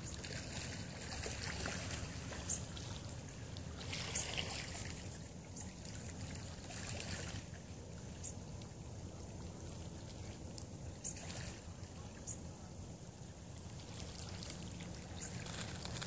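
Wind rumbling on the microphone, with short, very high chirps every second or two from small birds in a shrub, and a few brief gusts of hiss.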